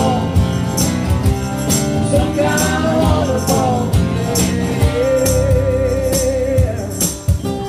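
Live band playing a song: electric bass and a singer over a tambourine keeping the beat. About five seconds in the singer holds one long, wavering note.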